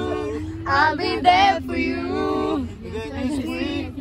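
Voices singing a melody together, with a steady low rumble of the car underneath.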